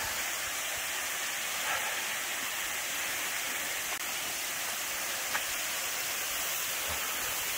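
Waterfall rushing: a steady, even roar of falling water.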